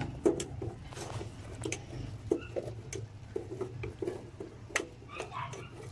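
A metal spoon working a mound of sticky cooked glutinous rice in a frying pan: irregular light clicks and scrapes of metal on the pan with soft squishing of the rice, over a steady low hum.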